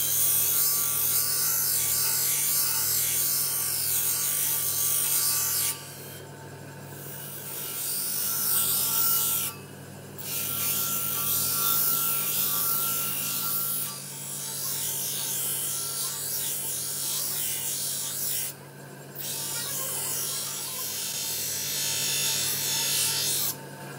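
Steel knife blank ground against a large motor-driven grinding wheel: a loud, hissing grind in several stretches of a few seconds each, with brief drops between them, over the steady hum of the wheel's motor.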